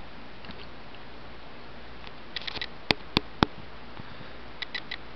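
Three sharp clicks a little past the middle, with a few softer ticks before and after, over a steady low hum.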